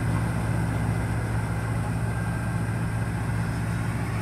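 New Holland TC5070 combine harvester running steadily while cutting maize and unloading grain through its auger into a trailer: a steady low engine drone with an even mechanical hiss over it.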